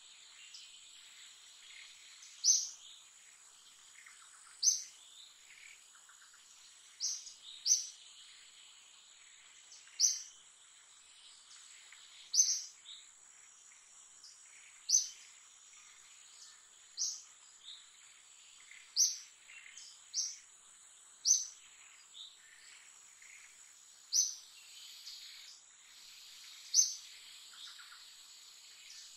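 Short high bird chirps repeating about every two seconds, some in quick pairs, over a steady high-pitched insect drone: tropical forest ambience.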